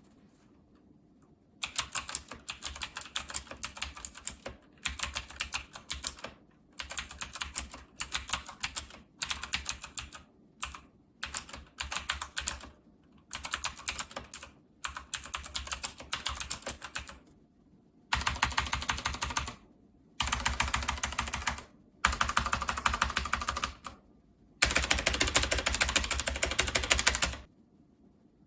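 E-YOOSO K620 mechanical keyboard being typed on. Short runs of clacking keystrokes with pauses come first, then from about two-thirds of the way through, longer runs of fast, dense typing.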